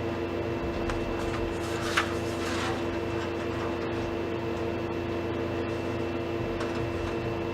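Steady background hum with a fixed pitch and no change in level, with one light click about two seconds in.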